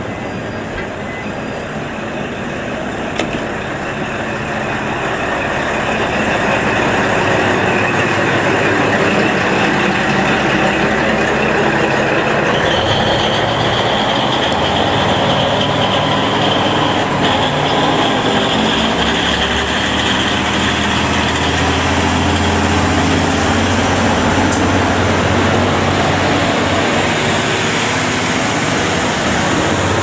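Two-car JR KiHa 40 diesel railcar train pulling out of a station and moving past close by, its diesel engines running under power and getting louder over the first several seconds. A steady high whine joins about halfway through, and the low engine hum grows stronger near the end as the last car goes by.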